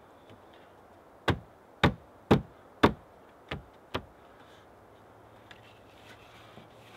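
A fist knocking on a wooden window sill: six knocks about half a second apart, the first four loud and the last two softer.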